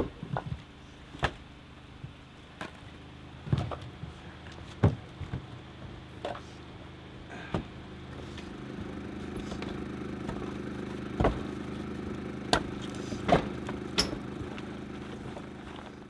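Split firewood pieces knocking against each other as they are loaded into a sled, a sharp knock every second or so. From about halfway a vehicle engine idles steadily under a few more clunks.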